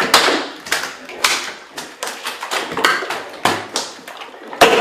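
Thick guar-gum slime in a bathtub slapping and plopping under moving hands and body, a quick irregular string of wet hits about two a second.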